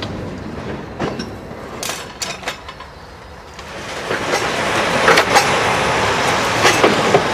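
Freight tank cars rolling slowly on the rails: steel wheels grinding and clanking over the track, with a few sharp knocks and brief wheel squeals. The sound grows louder from about halfway in.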